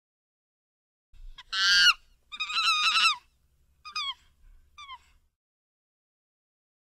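Four bird calls: two longer, loud ones beginning about a second and a half in, then two short, fainter ones, each dropping in pitch at its end.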